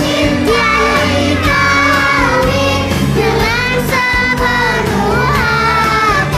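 A child's voice singing an Islamic devotional song (sholawat) with a held, bending melody over a steady instrumental backing.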